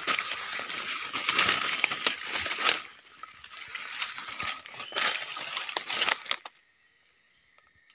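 Footsteps crunching and rustling through dry leaf litter and undergrowth in irregular crackles, stopping about six and a half seconds in.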